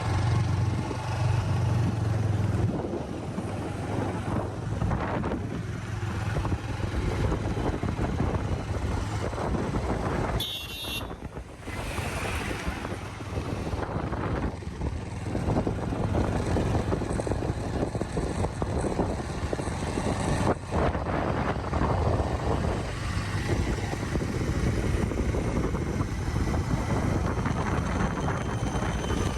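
Steady rumble and road noise of a vehicle travelling along a road, heard from on board, with wind buffeting the microphone.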